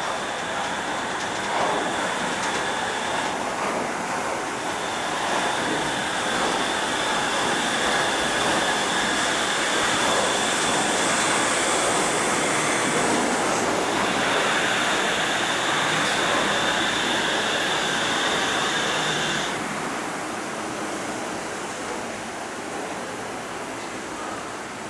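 Shonan Monorail suspended monorail train standing at the platform, its onboard equipment giving a steady rushing hum with high, thin whining tones. The whine cuts off about twenty seconds in and the sound drops to a quieter hum.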